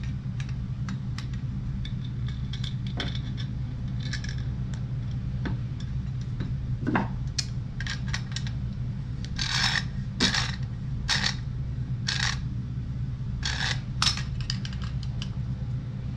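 Channel-lock pliers gripping and turning a brass hose fitting on galvanized pipe fittings: metal clicks and short scraping rasps, denser and louder in the second half. A steady low hum runs underneath.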